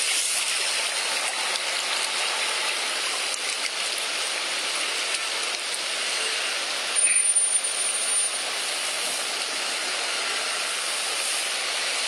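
Floodwater rushing and splashing steadily, with a brief louder surge about seven seconds in.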